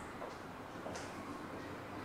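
Quiet room tone with a faint short tick about a second in.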